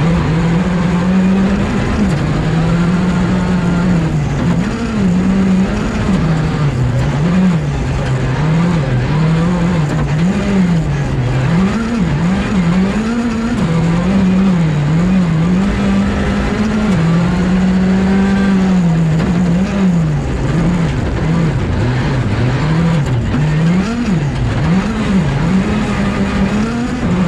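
Skoda Fabia R5 rally car's 1.6-litre turbocharged four-cylinder engine heard from inside the cabin at stage pace. Its note rises and falls again and again as the revs climb and drop through gear changes and corners.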